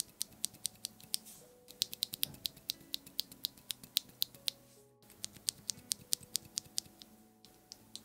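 A loose mechanical keyboard switch pressed and released repeatedly between the fingers: sharp plastic clicks, about four to five a second, in two runs with a short break about five seconds in.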